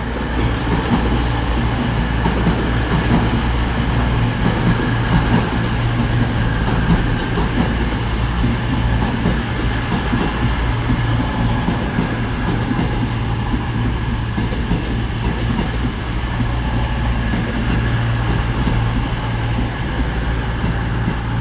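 Two coupled CrossCountry diesel multiple units, a Class 220 Voyager and a Class 221 Super Voyager, running along the platform; their underfloor diesel engines give a steady low drone under the noise of the wheels on the rails.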